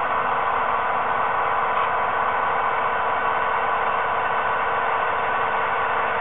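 HO-scale model diesel locomotives running with DCC sound, their small speakers giving a steady, hissy diesel engine drone.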